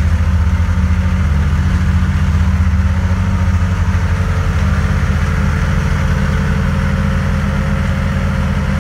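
Yamaha Sidewinder BTX and Viper snowmobiles' four-stroke three-cylinder engines idling steadily inside an enclosed trailer, just after a cold start at −30 °C.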